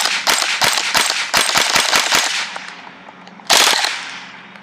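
Rental airsoft rifle firing a rapid string of shots lasting about two and a half seconds, then, after a short pause, a second short burst.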